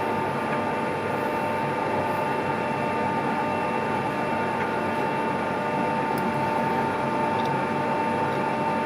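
Metal-turning lathe running steadily, its geared headstock giving a constant whine over an even mechanical hum.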